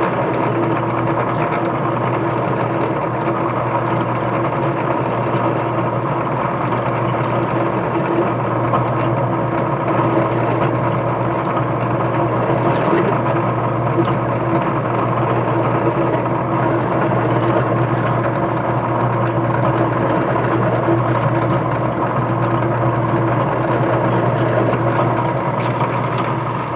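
Bench drill press running steadily, spinning an extended drill bit ground like a countersink as it deburrs and chamfers the holes in a bronze bicycle hub; a constant motor hum with a steady tone.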